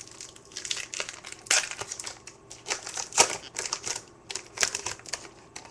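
Trading cards being handled and flipped through by hand: an irregular run of sliding scrapes, clicks and crinkles as the cards of a freshly opened Topps Chrome pack are shuffled past one another.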